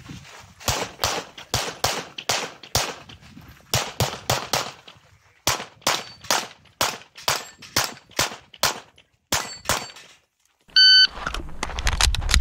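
A rapid string of pistol shots during a USPSA practical-shooting stage, fired mostly in quick pairs with short pauses while the shooter moves between positions. About eleven seconds in, an electronic shot-timer start beep sounds, followed by steady low wind rumble on the microphone.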